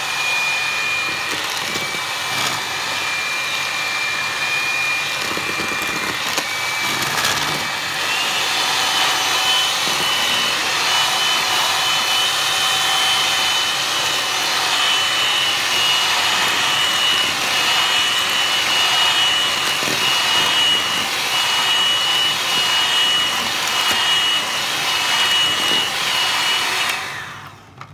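Electric hand mixer running, its twin beaters whisking a spiced, creamed cookie batter in a plastic bowl. The motor's steady whine steps up in pitch about eight seconds in. It is switched off near the end.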